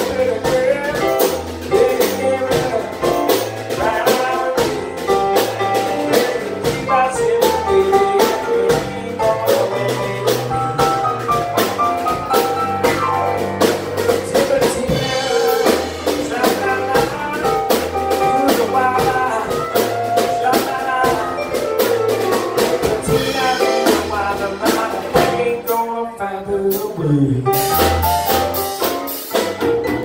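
Live band playing a New Orleans rhythm-and-blues piano number: a drum kit and a Casio Privia digital piano.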